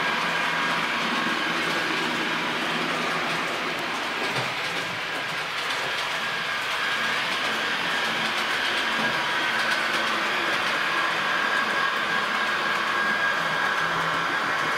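HO-scale model train running on the layout's track: a steady electric motor and gear whine over the rolling of the wheels on the rails, with faint clicking.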